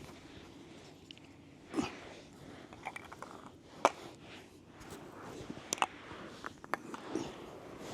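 Scattered light knocks and clicks of small household items being picked up and set down by hand, with soft rustling in between; the loudest knock comes about four seconds in.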